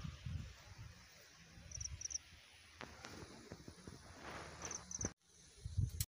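Outdoor ambience: an irregular low rumble with short, high-pitched chirps, a pair about two seconds in and another pair near the end.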